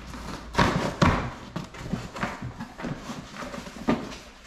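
Cardboard box being opened by hand: flaps pulled up and torn free, with rustling and a few knocks and thuds, the loudest about half a second to a second in.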